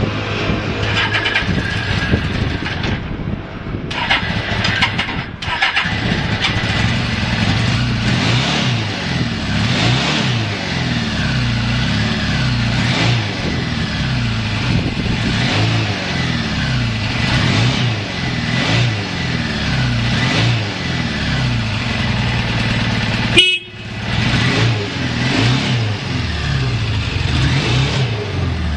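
Suzuki GS650's air-cooled inline-four engine running and being revved up and down over and over, each blip of the throttle a rise and fall in pitch. The engine runs evenly with no abnormal noise, as a healthy engine should. A sharp click cuts in about 23 seconds in.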